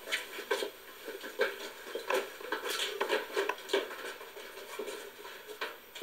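Footsteps of two people walking on a hard floor: an irregular run of short steps and scuffs, roughly two a second.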